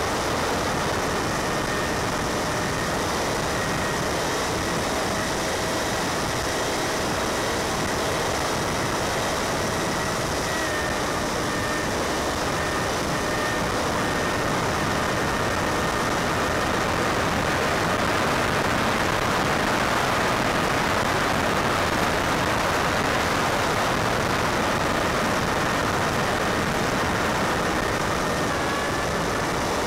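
Steady rushing hiss with a faint, even whine through it: the Multiplex Easy Star's brushless electric motor and pusher propeller running under power in flight, mixed with wind noise.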